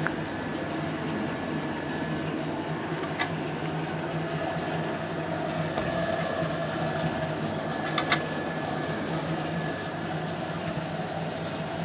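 Long dough moulder's electric motor and conveyor running with a steady hum, with two sharp clicks, one about three seconds in and one about eight seconds in.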